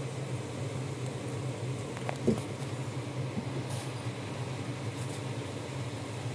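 A steady low mechanical hum, with a few faint clicks about two seconds in.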